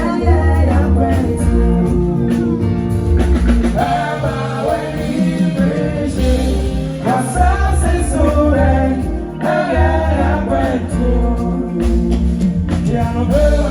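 Live band playing a song with a singer's voice over it, with a heavy bass line.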